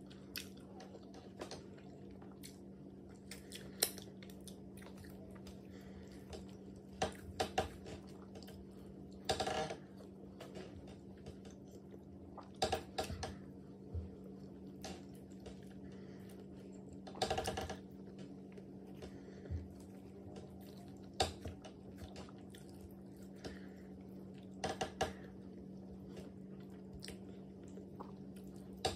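Mukbang eating sounds of a person chewing pounded yam and black soup: wet smacks, squishes and mouth clicks every few seconds, a few of them longer and louder, over a steady low hum.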